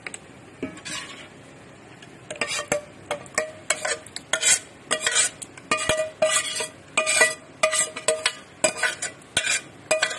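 Steel spoon scraping masala out of a metal pot into the biryani pot, clinking and scraping against the metal again and again, roughly twice a second, each stroke ringing briefly. It starts about two seconds in.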